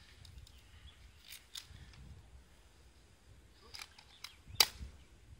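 A handful of short, sharp clicks over a faint background: two about a second and a half in, then three between about four and four and a half seconds, the last the loudest.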